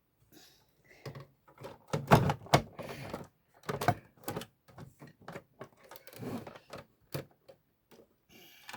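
Irregular clicks, knocks and scraping of the original Xbox's hard drive and mounting parts being handled and shifted into place. The loudest knocks come about two seconds in.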